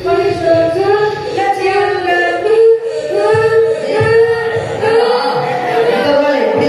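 A young voice singing a melody with long held, gliding notes, amplified through a hand-held microphone.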